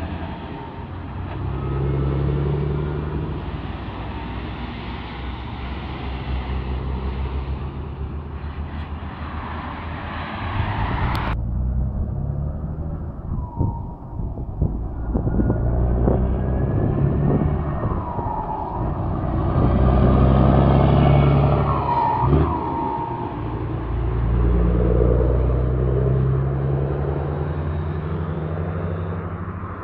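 Volvo FH16 520 truck with a straight-piped (open) exhaust, its 16-litre straight-six running under load in traffic. It gives a deep, loud exhaust rumble that swells and falls several times with the revs, while cars pass close by.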